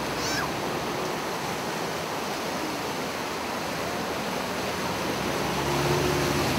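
Steady rush and wash of shallow floodwater across a street, stirred by vehicles driving through it. A faint low vehicle engine hum comes in near the end, as the level rises a little.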